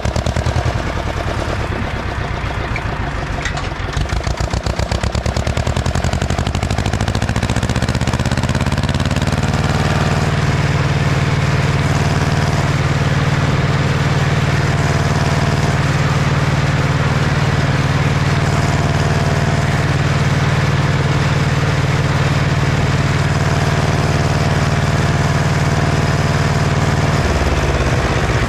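Ursus C-335 tractor's two-cylinder diesel engine running well. Its separate firing beats at lower revs speed up over a few seconds into a steady, higher-revving run, and the revs drop again near the end.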